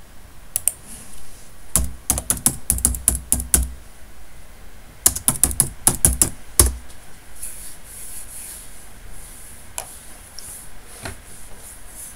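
Typing on a computer keyboard: two quick runs of keystrokes, then two single clicks near the end.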